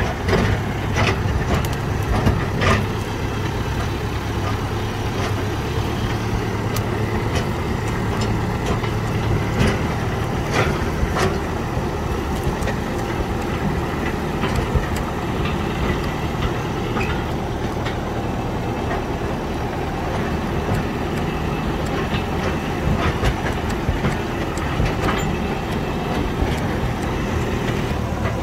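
Massey Ferguson tractor engine running steadily under way, with scattered clanks and rattles over the top.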